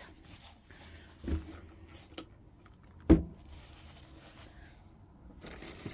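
Small boxed nail supplies being handled on a desk: a few light knocks, with a louder one about three seconds in, and a short rustle of packaging near the end.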